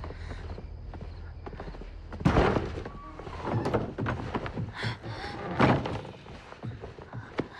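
A heavy thump about two seconds in, followed by two more hits a little later, over faint background music.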